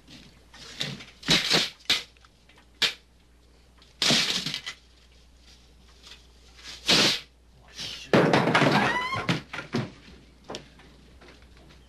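Venetian window blinds being handled, rattling and clattering in several short bursts. The longest comes late, with a quick rising run of squeaky ticks in it.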